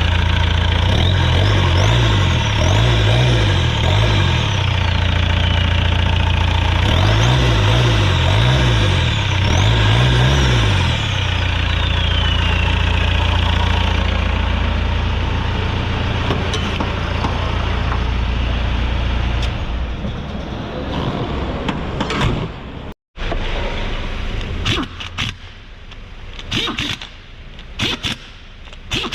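Mercedes Sprinter 412 diesel engine running steadily, revved up and down twice in short bursts. The engine sound falls away after about twenty seconds, and after a break come several sharp clicks and knocks.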